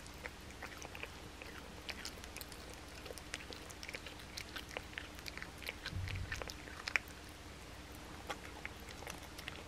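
Blue tortoiseshell cat chewing a raw boneless chicken thigh: irregular wet chewing clicks and smacks as it bites and tears at the meat, with a brief low thump about six seconds in.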